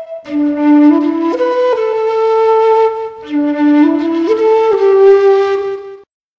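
Bansuri bamboo flute playing a simple melody in two short phrases, the notes stepping up and down. It cuts off suddenly about six seconds in.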